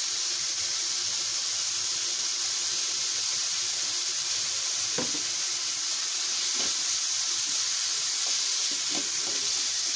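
Chicken and onion masala sizzling steadily as it fries in a hot pan. A spatula stirs it, knocking lightly against the pan a few times in the second half.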